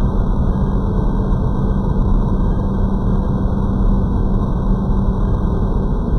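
1999 Hoover SteamVac Widepath carpet cleaner running steadily, a loud, even motor drone.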